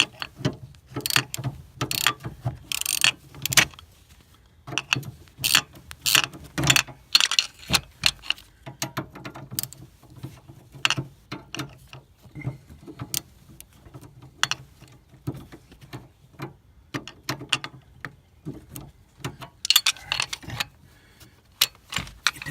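Ratchet wrench with a 5/16 socket clicking in short irregular runs as a bolt is tightened down.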